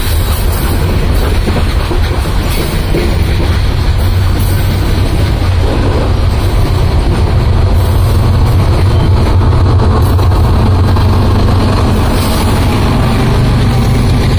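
Freight train passing close by: coal hopper cars rolling on the rails, then the train's rear diesel locomotives approaching, their engines' low drone growing stronger through the second half.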